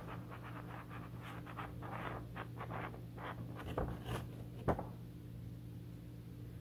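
Paper sticky notes rustling and crinkling as a stack of them is handled: quick scratchy rustles for the first three seconds, then three sharper crinkles, the last the loudest, before the handling goes quiet over a low steady hum.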